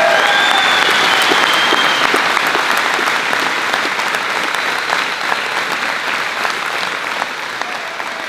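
A large crowd applauding, with a few voices calling out over the clapping in the first couple of seconds; the applause slowly fades.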